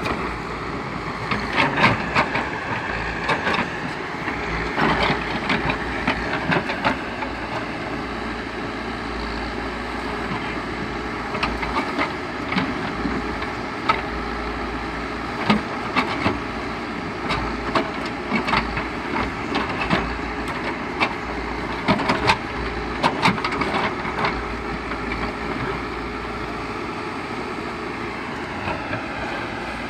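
Backhoe loader working, its engine running steadily under frequent irregular metallic clanks and knocks.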